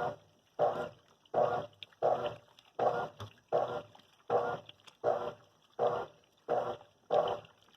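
GE Multi Capacidade 10 kg washing machine agitating: its motor and agitator sound in regular strokes, one about every three quarters of a second, each a short burst with a brief pause between.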